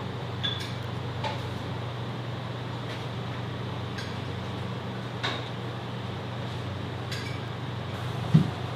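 Steady low hum of restaurant room tone, with a few light clinks of metal chopsticks and tableware. One duller, louder thump comes near the end.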